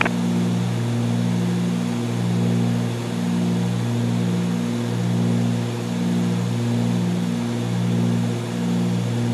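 Twin piston engines of a Cessna 310Q droning steadily in the climb, heard from inside the cabin. The drone swells and fades in a slow regular pulse a little faster than once a second, the beat of two propellers turning at slightly different speeds.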